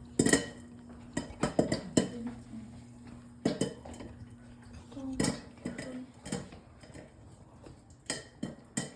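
Popcorn kernels popping under a lid: irregular sharp pops, some coming in quick clusters, over a faint steady hum.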